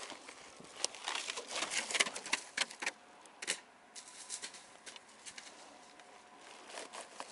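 Footsteps scrambling over loose rock and gravel: a run of irregular crunches and scrapes, busiest in the first three seconds, then a few scattered steps.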